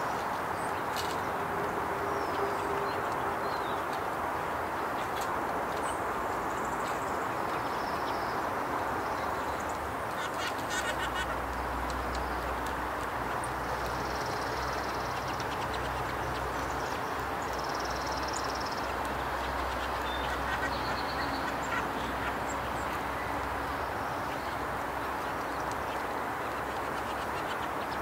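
Wind-blown outdoor ambience: a steady rushing noise, with a low wind rumble on the microphone through the middle, and scattered short high-pitched chirps from small songbirds at a feeder.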